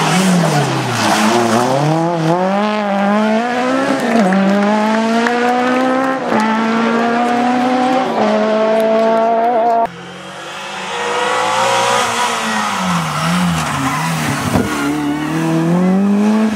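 Rally car engines revving hard as the cars accelerate on a tarmac stage, the pitch climbing and dropping back at each upshift roughly every two seconds. About ten seconds in the sound cuts abruptly to another car, whose engine pitch dips and wobbles as it slows for a bend and then climbs again as it pulls away.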